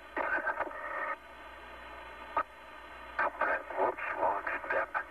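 Apollo air-to-ground radio channel: bursts of narrow-band radio static and muffled, indistinct transmissions come and go, with one sharp click about two and a half seconds in.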